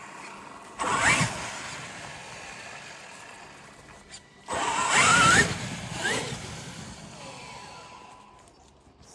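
Traxxas X-Maxx RC monster truck's electric motor whining up in pitch under hard acceleration, twice: once about a second in, and again at about four and a half seconds. Each run fades away slowly afterwards.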